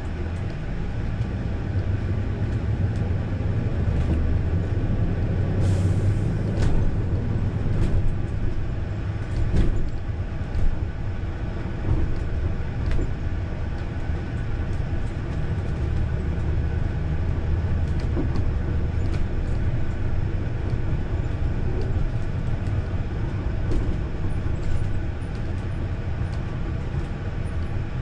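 Cabin noise inside a Winnebago Journey 37H diesel pusher motorhome on the move: a steady low drone of the rear diesel engine and road noise, with scattered clicks and knocks.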